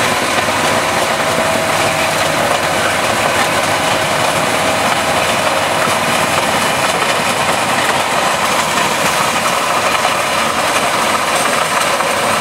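Bugnot stone crusher, driven off the power take-off of a Fendt 942 Vario tractor, breaking up rock on a gravel track: a loud, steady crushing and grinding noise over the tractor's six-cylinder diesel running under load.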